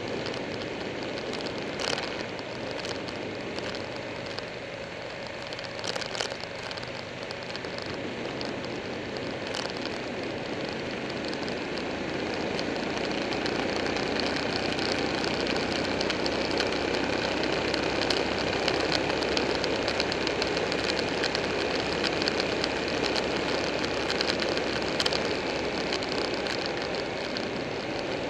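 Buell 1125R's liquid-cooled V-twin engine running while riding, heard under heavy wind rush on the bike-mounted microphone. It grows louder about halfway through, and there are a couple of sharp knocks near the start.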